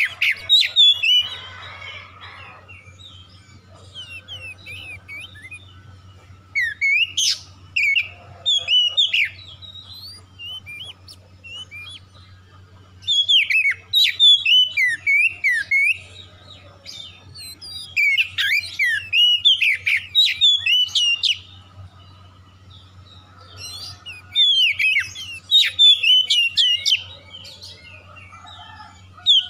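Oriental magpie-robin singing: about five bursts of loud, varied whistles and rapid trills, each a few seconds long, separated by short pauses.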